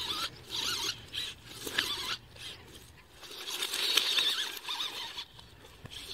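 Small electric motor and plastic gearbox of a cheap toy RC Dodge Ram truck whining in short throttle bursts, the pitch wavering as it labours over sticks and leaf litter.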